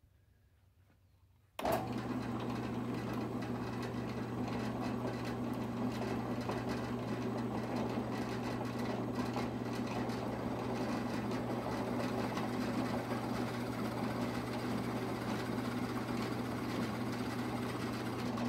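Floor-mounted drill press switched on about a second and a half in, its motor running with a steady hum as a long 1/2-inch bit bores slowly down into a block of maple hardwood.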